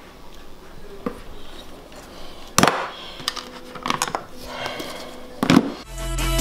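Kitchen utensils and containers knocking and clinking against a countertop: four or five separate sharp clacks. Near the end, background music with a heavy bass comes in.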